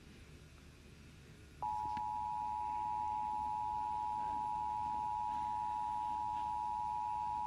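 Emergency broadcast alert attention signal: a steady two-tone beep just under 1 kHz that starts suddenly about a second and a half in and holds without a break. Before it there is only a faint low hum.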